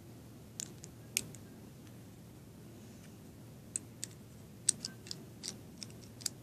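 Plastic Lego bricks clicking as they are handled and pressed together: a few sharp clicks in the first second or so, then a quicker run of about eight clicks in the second half.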